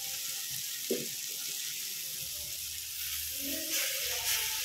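Onion-tomato masala frying in a kadai with a steady sizzle, with chili powder freshly added on top. There is one short click about a second in, and a metal spoon starts stirring near the end.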